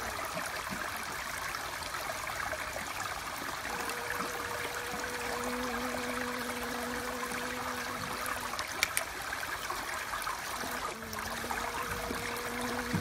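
Steady rushing background like a running stream, with a bee's low steady buzz that comes and goes for a few seconds at a time. A single short click a little before the ninth second.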